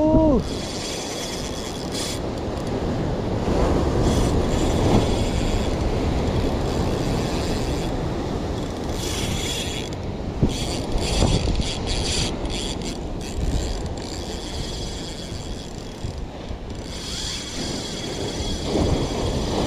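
Tica Talisman 3500 spinning reel's drag ticking and buzzing in spells as a hooked fish pulls line off against it, the fish being what the angler takes for a big giant trevally. Underneath is a steady rush of surf.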